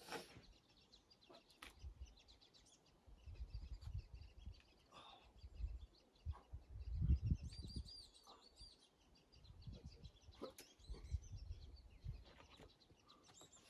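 Small birds chirping, with a quick run of repeated high chirps about seven seconds in, over gusts of wind rumbling on the microphone; a few scattered clicks.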